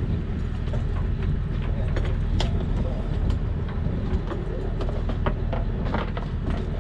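Steady low hum of a fishing boat's engine running, with wind noise on the microphone. Many short clicks and knocks are scattered through it.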